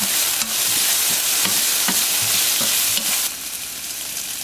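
Shiitake mushrooms sizzling in hot oil in a non-stick frying pan while being stirred with chopsticks, with short knocks of the chopsticks against the pan about twice a second. A little past three seconds in, the knocking stops and the sizzle turns quieter.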